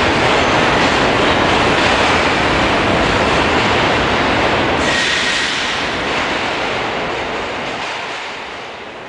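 New York City subway train running through a station, with a loud, steady rumble of wheels on track. About five seconds in, the sound changes and a short thin wheel squeal rises, then the rumble dies away over the last few seconds.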